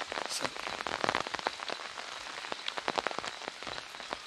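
Steady rain, with irregular sharp taps of drops striking an umbrella held close overhead.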